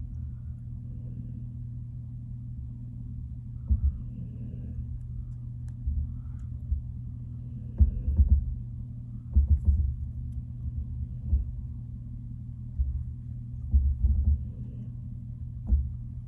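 Irregular soft knocks and low bumps, a dozen or so spread through, from hands working a fly-tying vise and tools while hackle is wrapped behind the bead, over a steady low hum.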